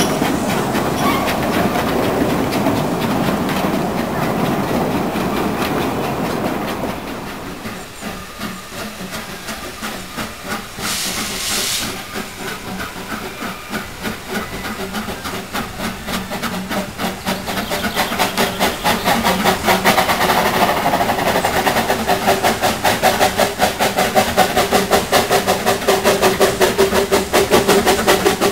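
Narrow-gauge train of open passenger coaches running past, then a pair of small Hunslet 0-4-0 saddle-tank steam locomotives approaching, their rapid, even exhaust chuffs growing louder. A brief hiss comes about eleven seconds in.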